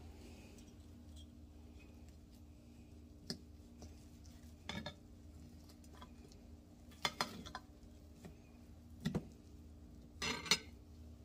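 Steak knife and fork clinking and scraping against a dinner plate while cutting into a cooked ribeye steak: a few sharp clinks scattered through, over a faint steady hum.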